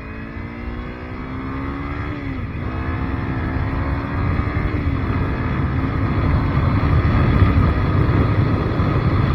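Motorcycle engine accelerating, its pitch climbing, dropping once about two and a half seconds in as it shifts up a gear, then climbing again. From about five seconds in, a low rushing noise builds and grows louder as speed rises.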